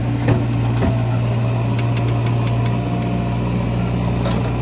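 Diesel engines of JCB backhoe loaders running steadily at working speed, with a few sharp knocks and clicks as the buckets work against the stone slab and earth, the loudest about a third of a second in.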